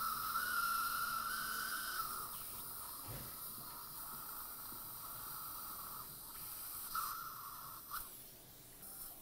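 Dental surgical suction hissing. It is strongest for the first two seconds and rises again briefly about seven seconds in.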